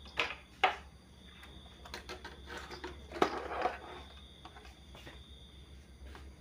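Clicks, knocks and rattling of a CRT television's main circuit board and its wire harness being handled and turned over in the opened cabinet: two sharp knocks in the first second, then a longer clatter between about two and four seconds in, the loudest knock about three seconds in.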